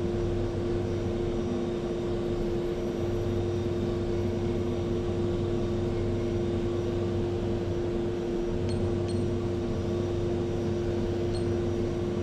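Yaskawa Motoman robot arm jogging slowly along one axis under teach-pendant control: a steady machine hum with a constant tone and a lower whir that fades about three seconds in and returns about eight seconds in. Two faint ticks come about nine seconds in.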